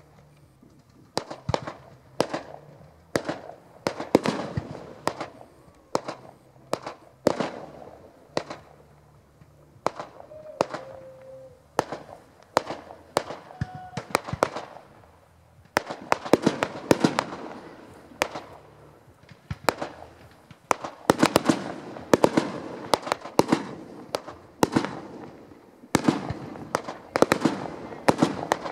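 Aerial fireworks display: shells bursting with sharp bangs, each trailing off in echo. They come about one a second at first, then thicker and faster from about sixteen seconds in and again from about twenty-one seconds in.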